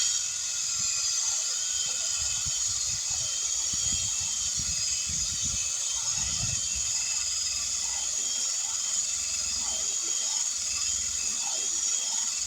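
Power drill running steadily with a high, multi-toned whine while reaming out the puncture in a tire, stopping abruptly near the end.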